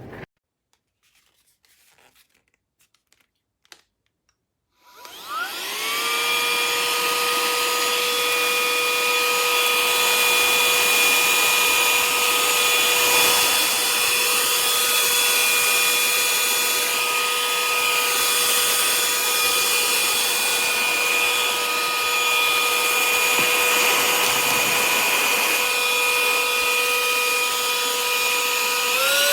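Cordless handheld vacuum cleaner: after a few seconds of near silence with faint clicks, its motor spins up with a rising whine and runs steadily with a rush of air. Near the end it steps up to a higher pitch.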